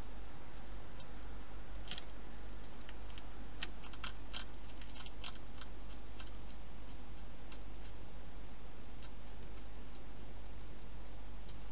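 Wild hedgehog eating from a bowl inside a plastic feeding box. Its chewing comes through as scattered sharp clicks, thickest between about two and six seconds in, over a steady low hum.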